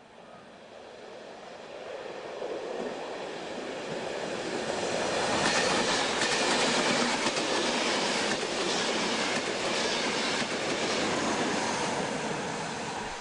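ÖBB class 4010 electric multiple unit passing through a station at speed: a rushing rail noise that grows from faint to loud over about five seconds, wheels clattering over rail joints as the coaches go by, then easing off as the train draws away.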